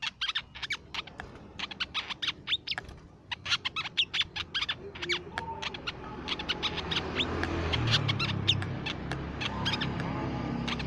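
Crimson sunbird calling: rapid runs of sharp, high chirps, with a low background rumble building from about halfway through.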